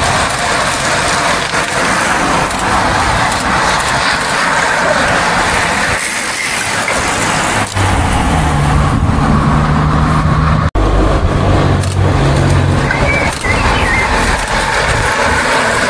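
A car drives past, its engine humming low and steady for a few seconds from about eight seconds in. Under it runs a loud, constant rushing noise.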